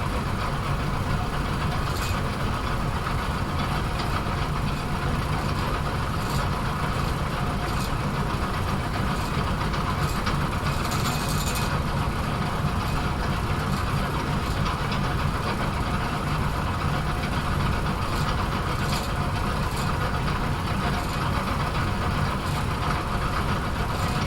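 Bowling alley pinsetter machinery running with a steady mechanical hum, with a few faint clicks and rattles along the way.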